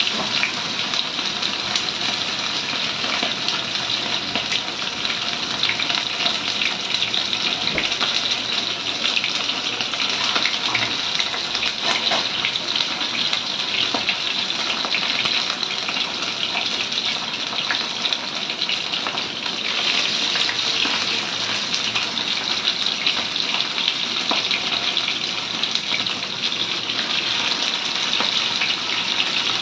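Fish pieces shallow-frying in hot mustard oil, a steady sizzle with fine crackling.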